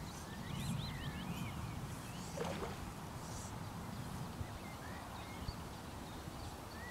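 Birds chirping in short, rapid calls over a steady low rumble of wind on the microphone.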